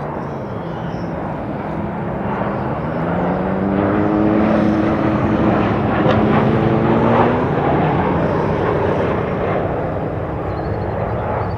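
Airbus A220-300's Pratt & Whitney PW1500G geared turbofans on takeoff, making the type's whale-like noise: several moaning tones sliding slowly up and down over the engine rumble. The sound builds to its loudest in the middle and then eases off.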